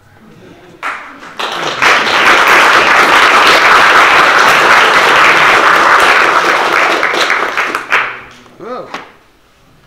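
Audience applauding: dense clapping that swells in about a second in, holds loud for around six seconds and dies away near the end.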